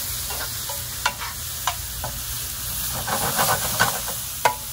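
Sliced onions, green peppers and mushrooms sizzling in a frying pan while metal tongs toss them. The tongs clink against the pan now and then, with a quick run of clinks about three seconds in.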